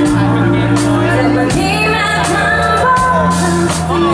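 Live pop band playing: a woman singing over keyboard and electric bass, with a steady beat.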